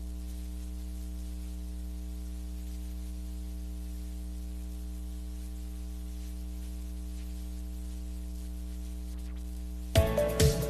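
Steady electrical mains hum, a buzz of evenly spaced tones held without change. About ten seconds in it is cut off by electronic music with a beat.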